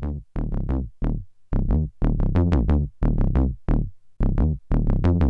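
Voluptron vacuum-tube ladder low-pass filter processing a sequenced square wave: a quick run of short synth notes of changing pitch, about three or four a second. Each note starts bright and quickly turns dull as the envelope sweeps the cutoff down. The filter input is maxed out, so the tubes soft-clip the signal.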